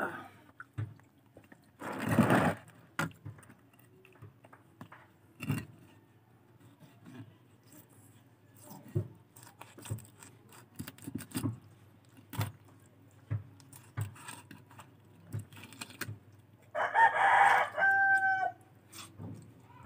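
A rooster crowing once near the end, a held call that breaks off. Through the rest come scattered light clicks and taps of a small knife working fish on a wooden board, with a louder scuffle about two seconds in.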